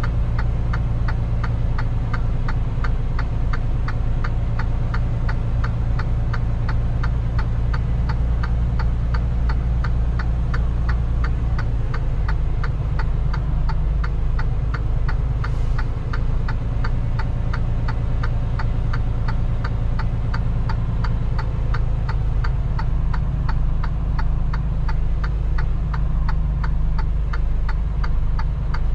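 Semi truck's diesel engine running at low speed, heard from inside the cab, with a steady rapid ticking of about three ticks a second from the hazard-light flasher. The engine note drops slightly about twelve seconds in.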